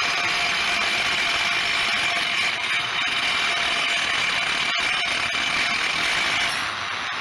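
Die grinder cutting into a concrete curb: a steady whine over grinding noise, easing off near the end.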